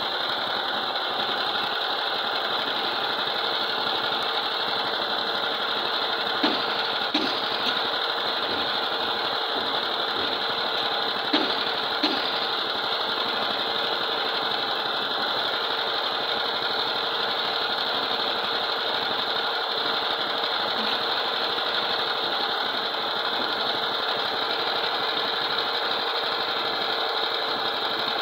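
Concrete drum mixer running steadily at a block-making yard, with a few short sharp knocks around the middle.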